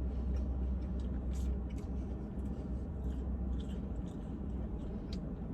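Chewing, with scattered small mouth clicks and crackles, as a sauce-dipped French fry is eaten, over a steady low car-engine hum.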